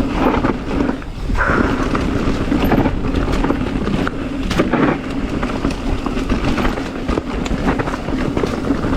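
Mountain bike running fast down a rocky trail: steady tyre and rolling noise with many quick knocks and rattles as the bike hits rocks.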